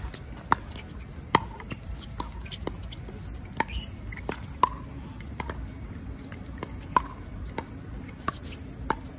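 A pickleball rally: the hollow plastic pock of paddles striking a pickleball and the ball bouncing on the hard court, a sharp click roughly every half second to second for the whole exchange.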